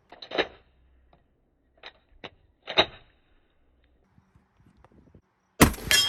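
Sharp metallic clicks and clacks of shotgun handling, four in the first three seconds, then a much louder sharp bang near the end that rings on for over a second.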